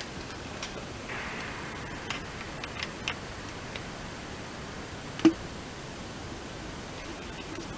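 Small scattered clicks and rustling from gloved hands working at the screws of a VW Golf IV's plastic wheel-arch liner, with one sharp, much louder knock about five seconds in, over a steady hiss.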